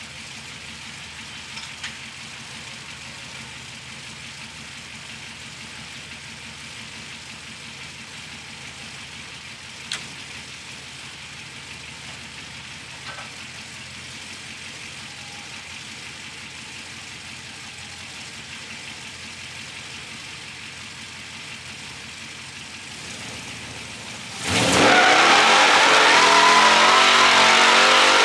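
A 1937 Ford hot rod's engine runs steadily and quietly, then about 24 seconds in it is suddenly revved hard and loud, its pitch rising.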